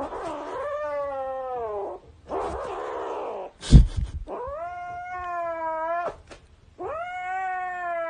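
A cat yowling in three long, drawn-out calls, the first falling in pitch. A breathy, noisy stretch comes between the first two calls, and a sharp thump, the loudest sound, falls just before the second.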